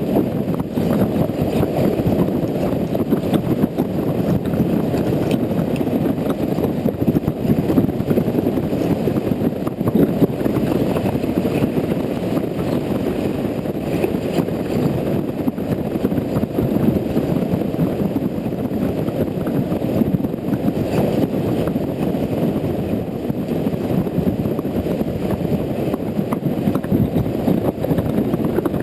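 Steady, muffled rumble of wind and road noise from riding a Honda Integra NC750D on wet roads, picked up by a GoPro, with no distinct engine note standing out.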